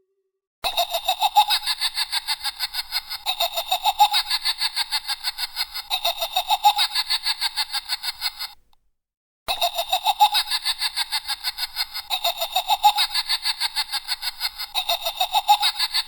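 High-pitched, rapidly pulsing laughter sound effect, a horror-style cackle with about seven pulses a second. It runs for about eight seconds, breaks off briefly, then plays again.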